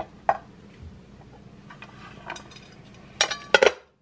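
Table knife scraping around the inside walls of a metal loaf pan with a few light clinks, then a short clatter of metal on a ceramic plate near the end as the pan is turned upside down onto the plate.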